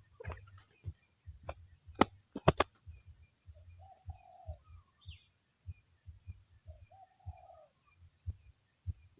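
Spotted dove (tekukur) cooing, a short phrase about every three seconds. There are several sharp clicks in the first three seconds and a steady high-pitched whine throughout.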